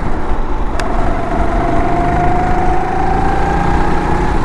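270 cc four-stroke rental kart engine running under throttle, its pitch rising slowly as the kart gathers speed, over a heavy low rumble. A single sharp click about a second in.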